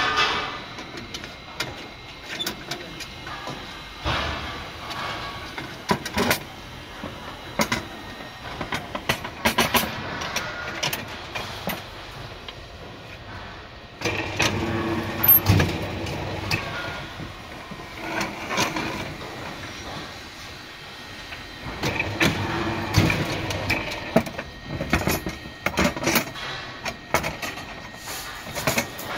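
Rebar bending machine bending steel bars into stirrups: spells of machine noise every few seconds as the bending plate turns, with clanks and rattles of the steel bars between them.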